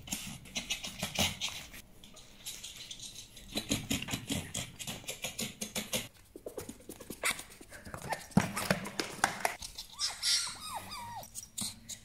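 Fennec fox vocalising: runs of quick clicking chatter, then a few high, falling whining squeaks near the end.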